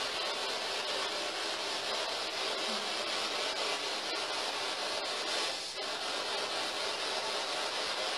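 Spirit box radio scanning through stations, giving a steady hiss of static with a brief swell about two-thirds of the way through.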